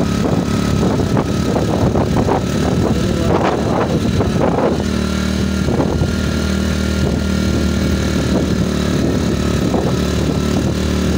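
Motorcycle engine running as it rides along a rough road, with road and wind noise; the engine note is uneven at first, then holds steady from about five seconds in.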